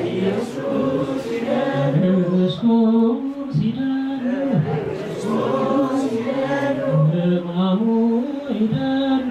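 A small congregation of men, women and children chanting a Good Friday liturgical refrain together in the Ethiopian Orthodox Tewahedo manner, in short repeated phrases sung in unison.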